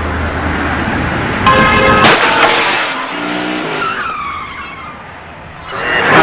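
Car tyres squealing in a skid, with a sudden loud hit about two seconds in. Loud road noise swells again near the end.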